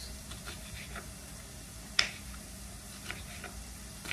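Kitchen knife chopping roasted poblano chiles on a wooden cutting board: a few irregular taps of the blade on the board, with one sharper knock about two seconds in.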